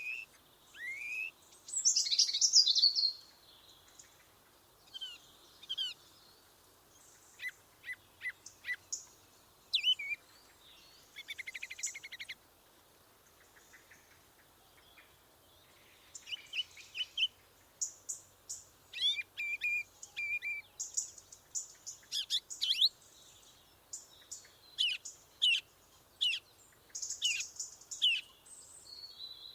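Several forest songbirds singing and calling, with varied short chirps, whistled phrases and trills. A loud phrase comes about two seconds in, a rattling trill just before the middle, then a short lull, and rapid overlapping chirps through the second half.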